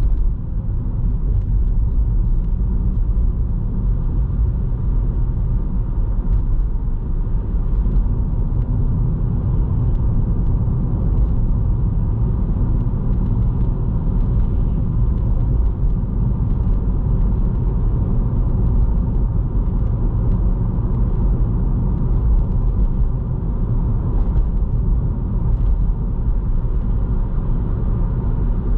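Toyota Vitz driving on the road, heard as a steady low rumble of engine and tyre noise.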